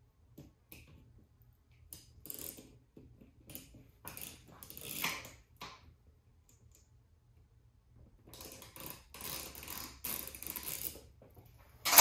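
Hand-tool work on the small bolts of a Mikuni carburetor's slide cap: irregular metallic clicks, taps and scrapes in two spells as the 7mm bolts are loosened, ending in a sharp clack.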